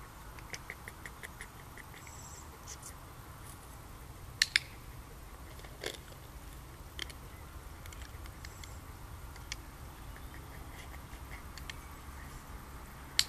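Sharp double clicks of a dog-training clicker, a close pair about four seconds in and another at the end, marking the sheltie's correct hold of the toy. Weaker single clicks and a brief run of faint rapid ticks fall between, over a low steady background rumble.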